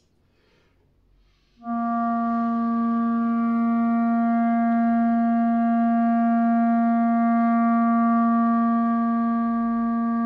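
Clarinet playing one long held note, starting about two seconds in and kept steady at one pitch: a long-tone embouchure exercise aimed at a clean, constant sound.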